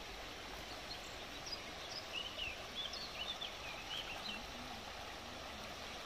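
Shallow river running over stones, a steady low rush of water. A small bird chirps several times in the middle few seconds.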